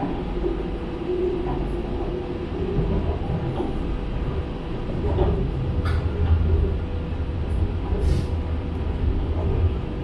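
Metro train heard from inside the car as it runs: a steady low rumble with a faint constant hum, and two brief clicks about six and eight seconds in.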